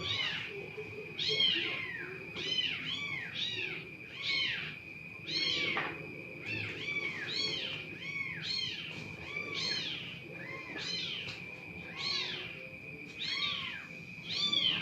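Cat meowing over and over in short rising-and-falling mews, about two a second and often overlapping, over a faint steady high whine.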